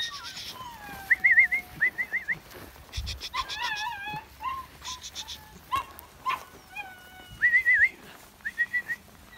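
Sheepdog handler's whistle commands: short warbling whistles, two about a second in and two more near the end. An animal cry wavers in pitch around the middle.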